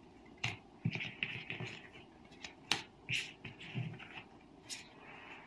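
Tarot cards being picked up and gathered off a cloth-covered table by hand: a string of light taps and short scrapes as the card edges hit and slide.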